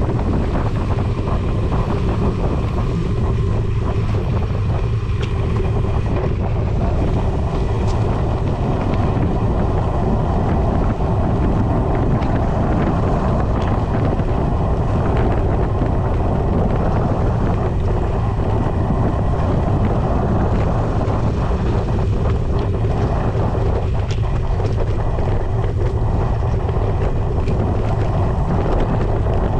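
Steady wind noise on the microphone and rumble from a mountain bike rolling downhill on a dirt trail, with a few sharp clicks and rattles.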